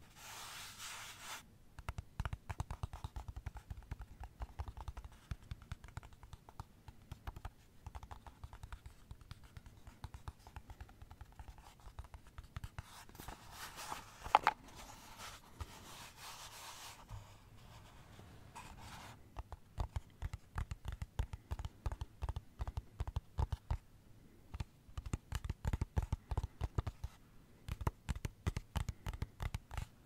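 Quick, irregular tapping on plastic, with stretches of scratching on it: about a second at the start and a few seconds midway. One sharper click in the middle is the loudest sound.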